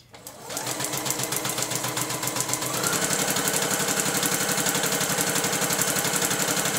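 Electric home sewing machine stitching through a strip of crepe paper, with its thread tension set high so the paper gathers into ruffles. The motor speeds up over the first second and again about three seconds in, then runs fast with a rapid, even needle rhythm.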